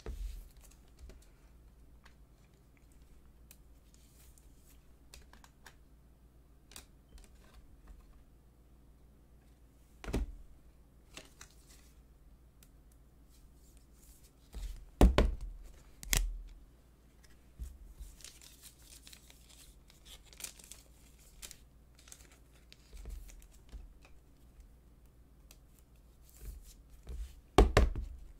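Plastic rustling and crinkling as a trading card is slid into a soft penny sleeve and then pushed into a rigid plastic top loader, with a few sharp plastic clicks and knocks about a third of the way in, around halfway and near the end.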